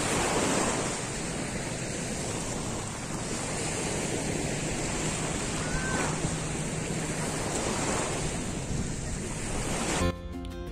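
Small sea waves breaking and washing up onto the sand at the water's edge, with wind buffeting the microphone. About ten seconds in, this cuts off suddenly and background music begins.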